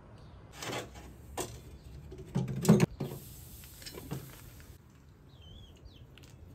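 Aluminium pot and lid handled on an iron stove top: a few metal knocks and clinks, the loudest between two and three seconds in. A bird gives a brief wavering call near the end.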